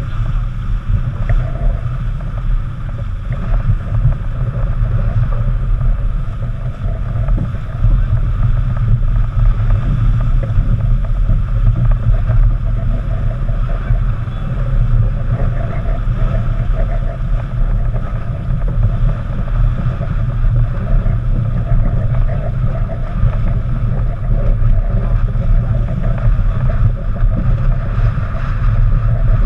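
Steady wind buffeting the microphone over the rush of water along the hull of a racing yacht heeled over and sailing hard upwind.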